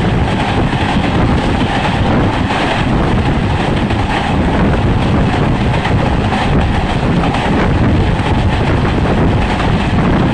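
Passenger train running at speed, heard from the coach side: a steady rumble of wheels on the rails mixed with wind buffeting the microphone.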